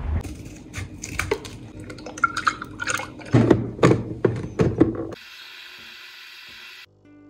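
Water running in a sink, with irregular clinks and clatter that are loudest about three to five seconds in. This gives way to a steady hiss.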